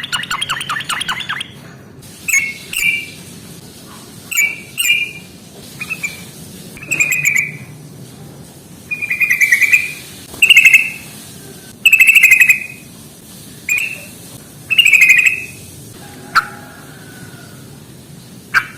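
Yellow-vented bulbul (trucukan) calling in a run of about ten short, buzzy, chattering phrases, each under a second long, with brief pauses between them.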